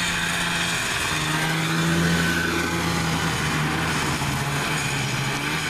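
1974 Arctic Cat El Tigre snowmobile's free-air-cooled Kawasaki 440 two-stroke twin running steadily as the machine is ridden along a snowy path, at an even pitch.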